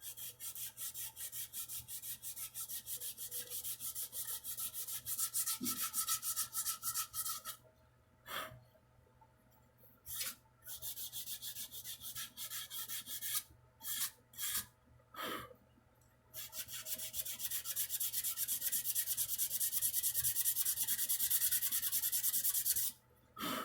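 Sandpaper rubbed by hand along a wooden guitar neck in rapid back-and-forth strokes, in two long runs with a few short bursts of strokes between them.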